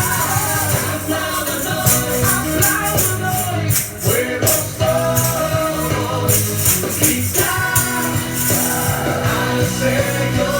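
Christian worship song playing: sung vocals over a full band.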